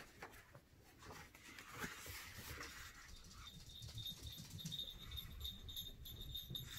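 Faint jingling of a small bell worn on a pet's collar, a thin high ringing that comes in about three and a half seconds in and keeps shimmering, over soft rustling and handling noise.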